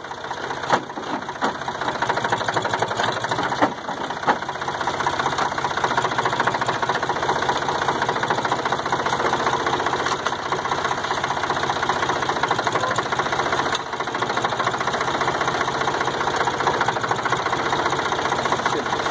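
Farm tractor engine running steadily, with a few sharp clanks in the first few seconds.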